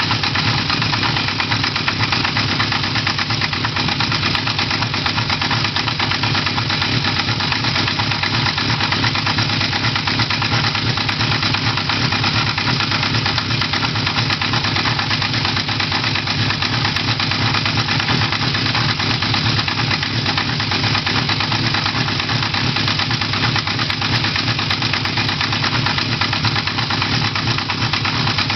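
Honda CB1100F air-cooled inline-four engine idling steadily, with the abnormal knocking noise from the engine that the owner is trying to trace.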